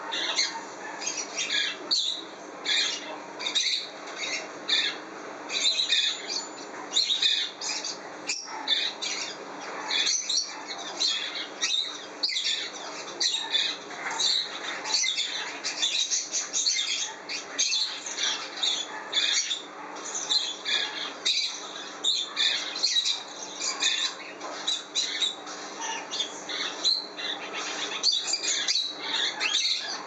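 Birds chirping and squawking without pause: many short, high calls, several a second.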